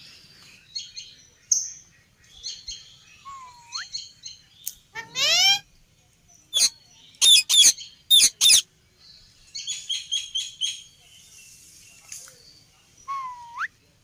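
Indian ringneck parakeets calling: scattered chirps, twice a whistled note that dips and then rises, and a cluster of loud, sharp screeches in the middle, followed by a quick run of short chirps.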